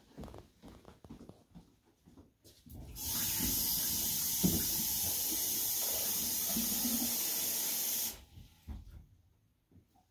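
Sink faucet running warm water into a plastic wash basin: a steady rush that comes on about three seconds in and is shut off abruptly about five seconds later.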